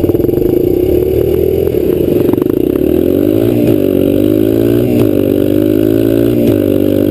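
Kawasaki KLX dirt bike's single-cylinder four-stroke engine accelerating hard from a standing start in a drag race. Its pitch climbs and then drops sharply at each of three upshifts in the second half.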